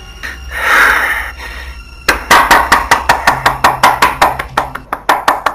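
A rush of noise that swells and fades about a second in, then a fast, even percussion beat of sharp strikes, about five a second, starting around two seconds in: the film's background music coming in.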